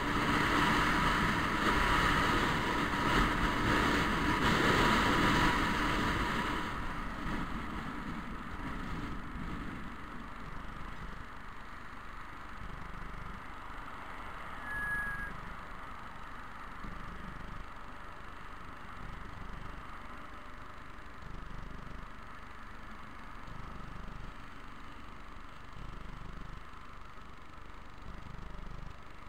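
Scooter riding along a road: loud wind and running noise for the first several seconds, then much quieter as it slows and waits at a roundabout, with passing car traffic swelling and fading. A brief high squeak about halfway through.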